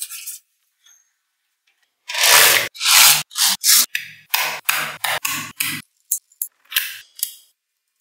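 Small magnetic balls rubbing and scraping against each other in a quick series of short strokes, starting about two seconds in; the first two strokes are the longest and loudest, and the rest come in shorter, fading scrapes.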